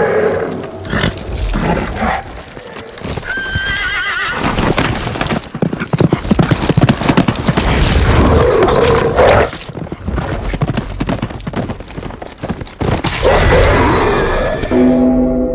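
Film sound effects of horses galloping, with a dense clatter of hooves, and a horse whinnying about four seconds in.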